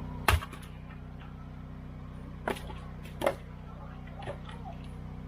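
Pieces of firewood knocking together as they are handled: a loud knock, then a few more spaced a second or so apart, the last one faint. A steady low hum runs underneath.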